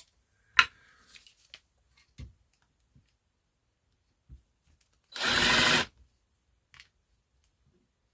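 Electric drill run in one short burst of under a second about five seconds in, drilling a screw hole in wood. A few sharp clicks and light knocks come before it.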